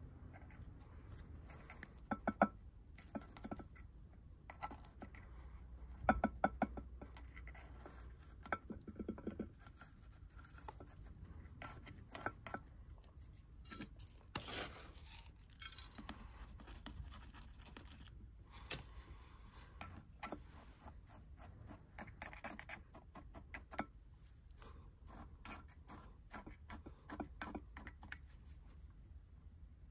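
Metal tweezers clicking and scraping against gritty potting soil, pebbles and the rim of a small ceramic pot while the soil is settled around succulent rosettes. Faint, irregular taps and scratches, with a longer rustling scrape about halfway through.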